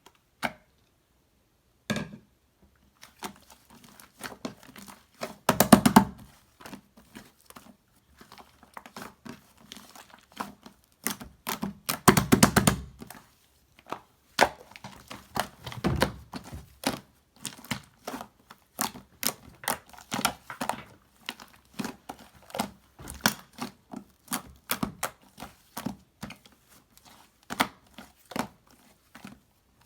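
Slime being handled, squeezed and poked by hand: a continuous run of sharp clicks and crackles. There are a few longer, louder presses about six, twelve and sixteen seconds in.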